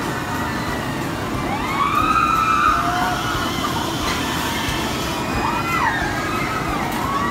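Riders screaming on a drop-tower ride as the seat ring comes down. There are several high, wavering screams, about two seconds in, near six seconds and again at the end, over a steady background din of the park.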